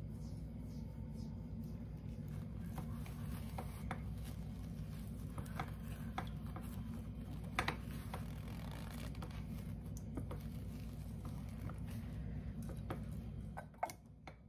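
Kitchen handling of homemade yogurt: glass jars emptied into a cloth-lined stainless mesh strainer and the cloth gathered and twisted, giving scattered clicks, taps and soft rustles. A glass container is set down on the strainer with a sharp clink near the end. A steady low hum runs underneath and stops just before that clink.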